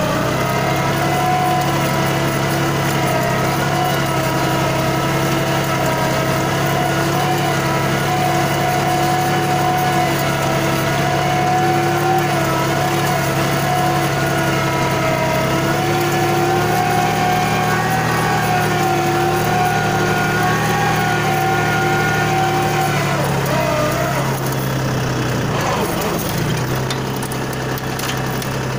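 Tractor's diesel engine running steadily while pulling a cultivator through the soil. A little over twenty seconds in, its higher tones waver and fall away, leaving a lower, steadier hum.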